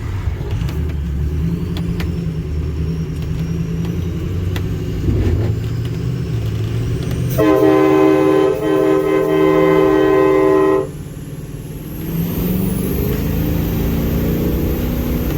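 Air-powered train horns on a pickup truck blast once, about seven seconds in, holding a loud steady chord for about three seconds before cutting off sharply. The truck's engine runs underneath and rises in pitch near the end.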